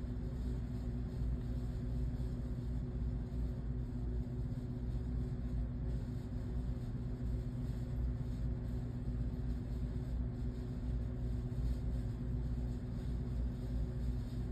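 A motor running steadily: a constant low rumble with a hum that does not change.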